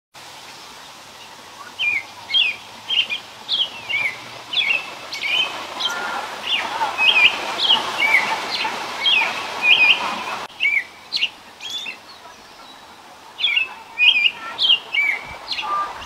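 American robin singing: a run of short, clear whistled phrases that rise and fall, starting about two seconds in, with a short pause past the middle before the phrases resume.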